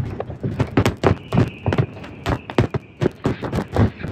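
Aerial firework shells bursting in a rapid, irregular barrage, about four bangs a second, each with a short rumble after it. A thin, steady high whistle sounds over the bangs from about a second in, lasting about a second and a half.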